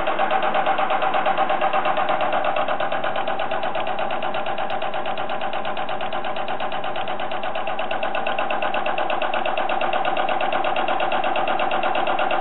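Diesel injector test bench running with its cam box driving an electronic unit injector: a steady mechanical hum with a fast, even beat, like a machine ticking over.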